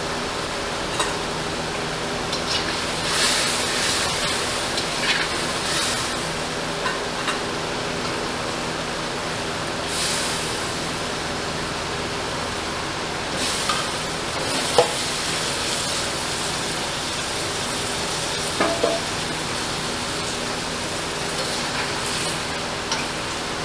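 Gravy simmering and bubbling in a stainless-steel kadai, with short bursts of sizzling as pieces of eggplant and sponge gourd go into the hot pan. A few sharp clinks of a metal spatula against the pan, the loudest about two-thirds of the way through.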